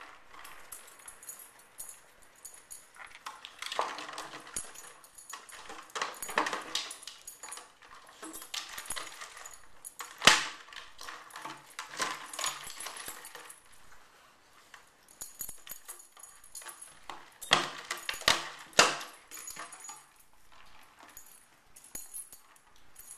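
Plastic bottles with popcorn inside being nosed and pushed around on carpet by two dogs: irregular crinkling, scuffing and clicking of the plastic, with a few sharper knocks, the loudest about ten seconds in and twice near the eighteen-second mark.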